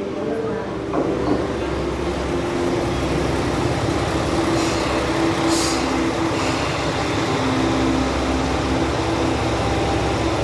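Train arriving at a station platform: a steady rumble with a humming tone that comes and goes, and a few short hisses near the middle.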